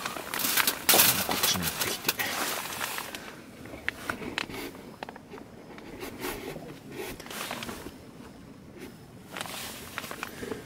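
Rustling and handling noises, with a scatter of light clicks and knocks that are dense for the first few seconds, then sparse and quieter through the second half.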